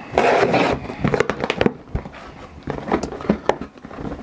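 Scissors slitting the packing tape along the seam of a cardboard box: a short tearing rasp near the start, followed by scattered clicks and taps as the cardboard is handled and the flaps are opened.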